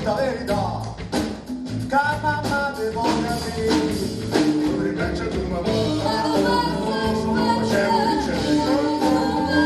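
Live band playing a song, with electric guitars and a woman singing.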